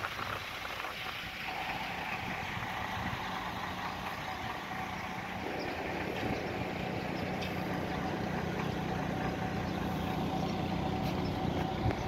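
A steady low machine hum with a fainter higher tone in it, over a wash of outdoor background noise, slowly growing a little louder.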